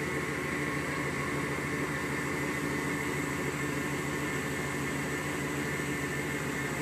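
1992 GMC Sierra pickup's engine idling steadily, an even hum with a faint high whine.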